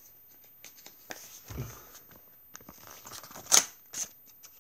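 Paper envelope being opened by hand: scattered rustles and crinkles, then a loud sharp tear about three and a half seconds in and a shorter one just after.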